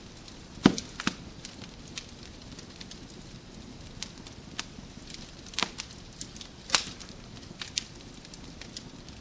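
Wood fire crackling in a fireplace: irregular sharp pops and snaps over a low hiss, with louder pops about a second in and twice more in the second half.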